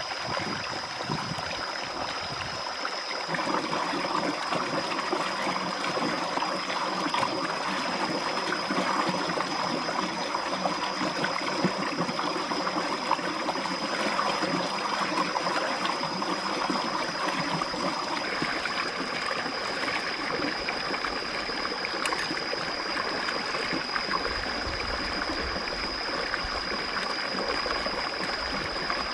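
Stream water running over rocks, with splashing as a plucked duck is rinsed in the current, and a thin steady high-pitched tone above it.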